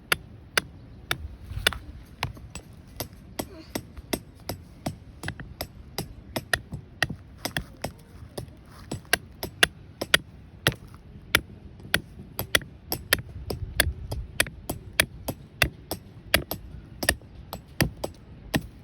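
A hammer driving a tent stake with rapid, steady blows, about two to three strikes a second, each a sharp clink.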